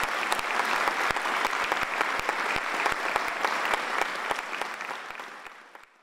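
Audience applauding, dense clapping that fades out near the end.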